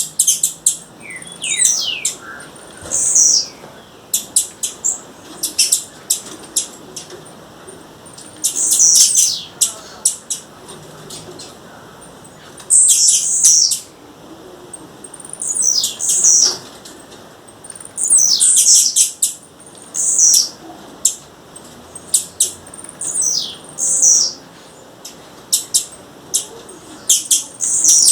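Blue-black grassquit (tiziu) calling: high, downward-sliding notes repeated every second or two, mixed with many sharp, short clicks.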